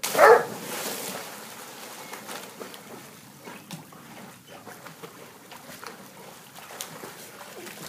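Pool water splashed by a swimming Irish Setter puppy: a loud splash about a third of a second in, then quieter sloshing and small splashes as she paddles.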